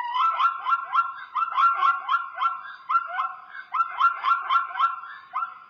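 Zebra giving its barking call: a fast run of repeated high yelps, about four a second, broken by a short pause about three seconds in and then repeated.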